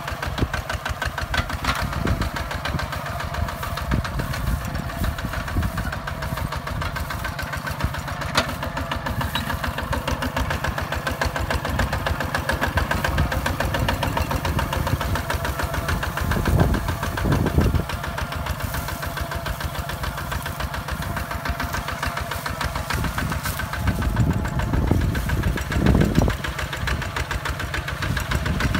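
Single-cylinder diesel engine of a two-wheel walking tractor running steadily under load as it pulls a plough through dry soil, with a rapid firing beat. It grows louder for a moment about halfway through and again near the end.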